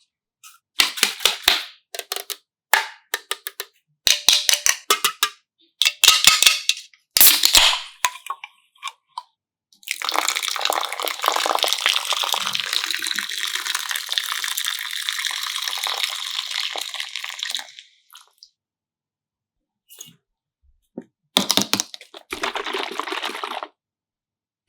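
Several short bursts of crackly, clicky handling noise. Then about eight seconds of steady liquid noise, like pouring or fizzing, and more crackly bursts near the end.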